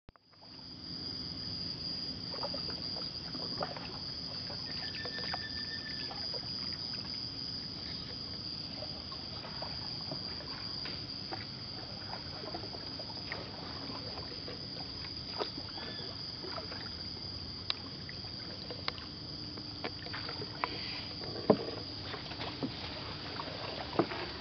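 A wooden canoe being paddled through still floodwater: soft paddle strokes and drips, with scattered knocks of paddle on hull and one sharper knock near the end. Under it runs a steady high-pitched insect drone from the rainforest.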